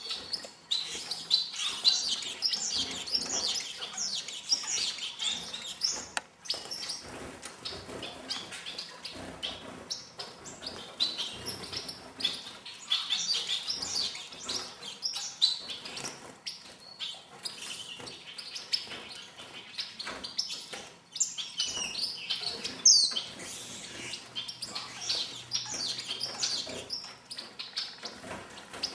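Star finches chirping: many short, high calls overlapping the whole time, with scattered light taps.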